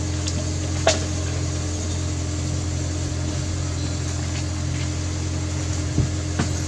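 A steady low mechanical hum like an idling engine, unchanging throughout, with a few faint clicks and one sharper click about a second in.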